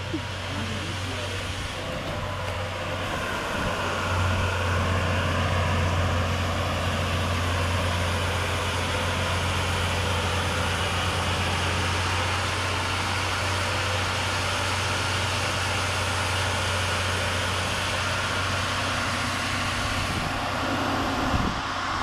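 An engine running steadily at a constant speed, a low hum that grows a little louder a few seconds in, with one brief knock near the end.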